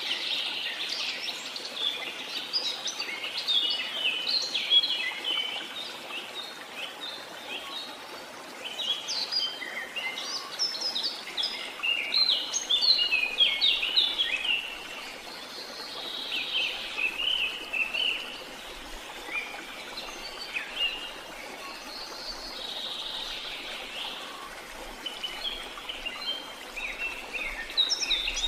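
A chorus of small songbirds chirping and singing, many short quick notes overlapping, over a faint steady hiss of outdoor background noise.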